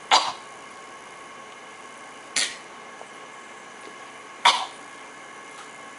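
A baby of almost nine months and an adult trading short fake coughs back and forth: three quick coughs about two seconds apart, the first and third louder.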